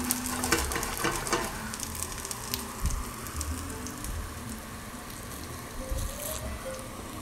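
Tostones (flattened plantain slices) sizzling in oil in a nonstick frying pan. Crackling is densest in about the first second and a half, then settles to a quieter, even sizzle. The plantains have soaked up most of the oil, so the frying is light.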